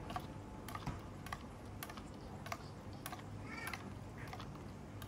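Light clinks and taps of a metal ladle and utensils against bowls and the soup pot, short sharp clicks every half second or so, over a faint steady low hum.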